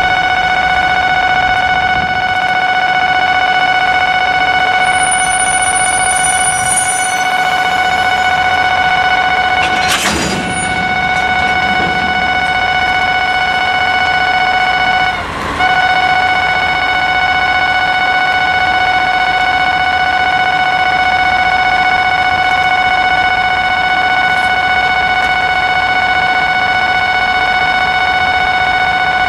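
Japanese level-crossing warning alarm ringing steadily, a loud pitched tone. There is a single heavy clunk about ten seconds in.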